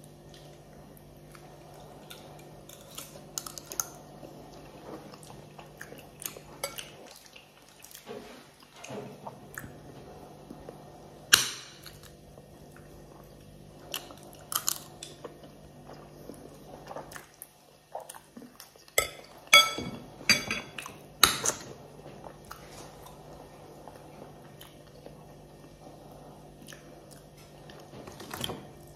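Metal spoon clinking and scraping against a glass bowl while eating, with chewing between spoonfuls. The sharpest clink comes about a third of the way in and a quick cluster of ringing clinks about two-thirds through, over a low steady hum.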